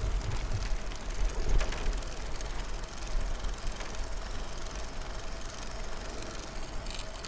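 Recumbent trikes rolling along a paved trail: tyre and drivetrain noise with a faint steady whine, under a low wind rumble on the microphone that swells briefly about a second in.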